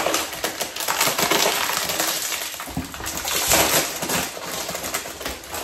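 Crinkling and rustling of the plastic bag inside a box of panko breadcrumbs as it is handled and pulled open: a dense run of small crackles.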